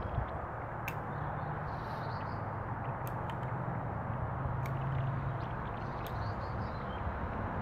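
Bonsai scissors snipping small twigs off a Japanese maple: a handful of short, sharp clicks a second or two apart. They sit over a steady low background rumble.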